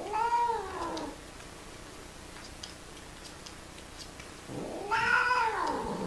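Domestic cat yowling twice during mating: two drawn-out calls that rise and then fall in pitch, the first right at the start and a longer one about four and a half seconds in.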